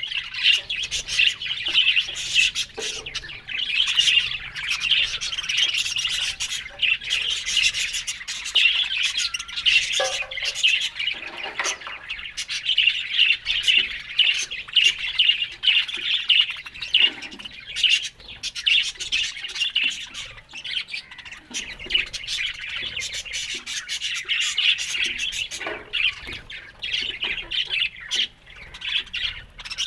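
Several budgerigars chattering: a dense, unbroken stream of short high chirps and squawks.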